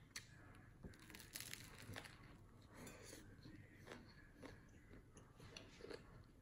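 Crusty baguette sandwich with lemongrass chicken being bitten and chewed: faint crunching and crackling of the bread crust, with a cluster of crackles about a second and a half in.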